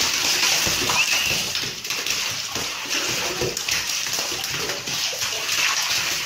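A cat's claws scrabbling and sliding on a smooth bathtub as it darts about inside the tub: a dense, continuous scratching and scuffling made of many quick strokes.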